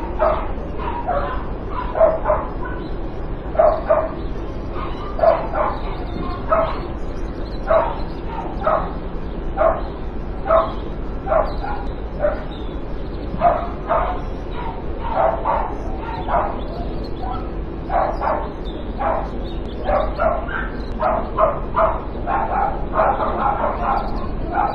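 Nuisance dog barking: short barks and yips repeated about one or two a second, crowding closer together near the end, over a steady low hum.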